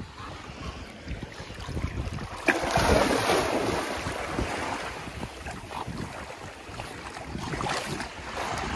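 Shallow seawater splashing as a golden retriever bounds through it after a floating toy, loudest from about two and a half seconds in, over small waves lapping and wind on the microphone.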